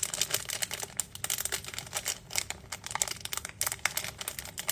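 Snack packet crinkling as it is opened and handled: a dense run of irregular crackles.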